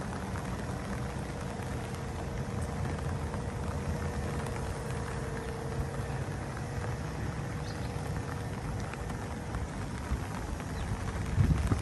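Steady hiss of rain with a faint, even hum under it, and a brief low bump near the end.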